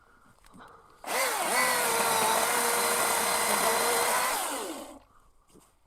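Small battery chainsaw running for about four seconds, a steady electric motor whine that dips briefly as it starts and falls in pitch as it winds down, as it cuts a small piece of wood.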